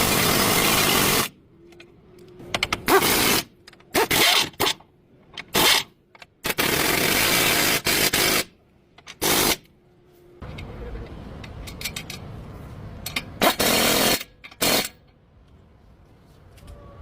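Power tool run in repeated bursts of hiss-like noise, switching on and off: one longer run of about two seconds and several short ones, with quiet gaps between.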